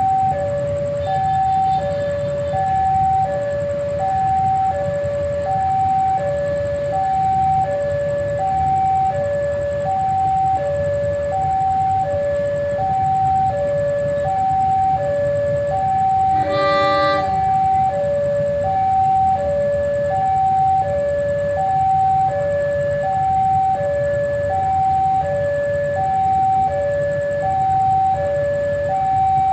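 Railway level-crossing warning alarm sounding a steady two-tone ding-dong, the two tones alternating without a break, over a low rumble. About halfway through, a locomotive horn gives one short blast of about a second.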